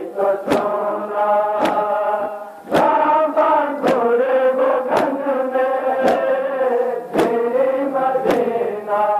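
A crowd of men chanting a Shia mourning lament (noha) in unison, with a loud, sharp beat about once a second from the crowd striking their chests together in matam.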